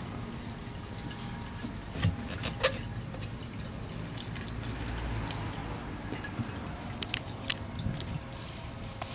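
Gasoline trickling from a motorcycle's gas tank through a rubber hose into a plastic gas can as the tank is drained by its petcock, with a few short sharp clicks.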